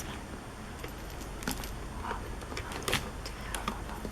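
A few light clicks and rattles of cables and small plastic-and-metal parts being handled, over a low steady hum.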